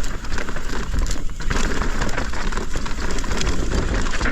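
Yeti SB165 mountain bike riding down a loose, dry dirt trail: a steady rumble of tyres over dirt and rock, with a constant crackle of small clicks and rattles from the bike.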